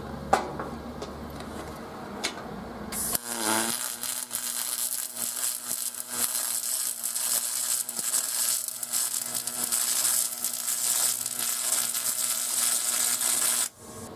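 Aluminum being MIG welded with a spool gun: about three seconds in, the arc strikes and runs with a steady crackling hiss for some ten seconds, then cuts off suddenly as the trigger is released.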